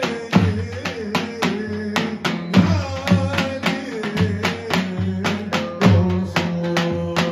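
Live folk dance music led by a davul, the large double-headed bass drum, beating a quick steady rhythm under a held, wavering melody line.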